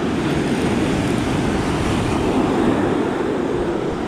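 Steady low rumble of wind buffeting the microphone, mixed with the wash of breaking surf.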